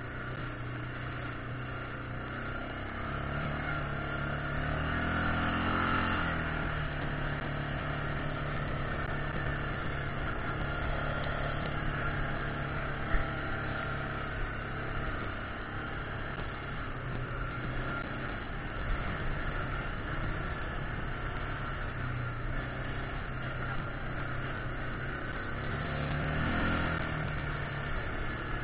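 Yamaha Grizzly 600 ATV's single-cylinder four-stroke engine running under way on a rough dirt trail, its pitch rising as the throttle opens a few seconds in and again near the end. A single sharp knock about halfway through.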